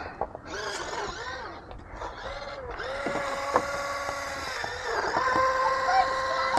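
Small electric motor of a tracked toy vehicle whining at a steady pitch, getting louder about five seconds in; its tread is spinning out ('running your tread out'), and the whine is 'really loud'.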